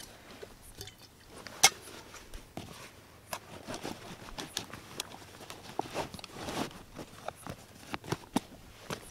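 Canvas rucksack being handled and its straps worked: rustling canvas with scattered small clicks and knocks, and one loud, sharp click about a second and a half in.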